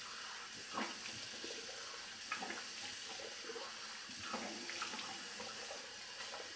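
Bathroom sink tap running steadily while water is splashed onto a face, with several short splashes over the hiss of the tap.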